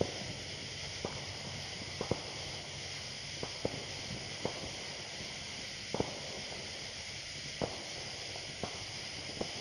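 Distant firecrackers going off irregularly, about a dozen short, sharp pops spread unevenly over a steady hiss.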